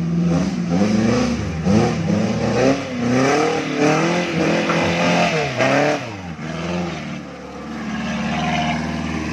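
Engine of a small off-road 4x4 revving up and down over and over as it climbs a muddy rut under load, then running steadier and lower for the last few seconds.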